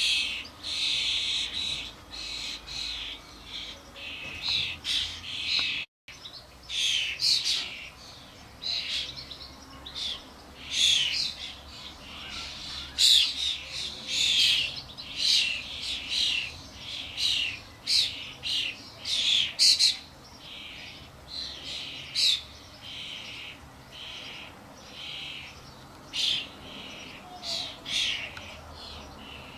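Common starlings, adults with their fledglings, calling in a rapid series of short calls that thin out after about twenty seconds.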